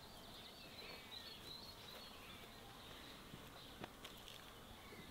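Quiet rural outdoor ambience with faint bird chirps, and one light click a little before the end.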